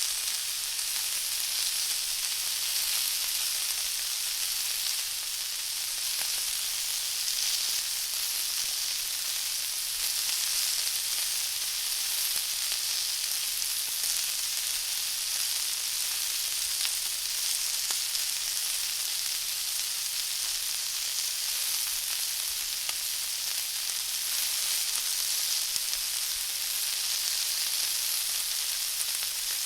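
Fried chicken frying in hot oil: a steady sizzle with fine, irregular crackles that keeps an even level throughout.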